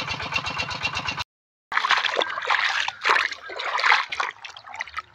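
A small engine running with an even rapid beat, cut off abruptly about a second in; after a short gap, water splashing and sloshing in irregular bursts.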